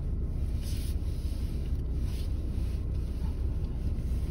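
Steady low rumble of a car rolling slowly, heard from inside the cabin.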